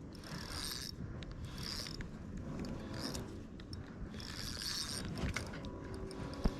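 Fishing reel being cranked to retrieve line, its gears whirring in spells of about a second each.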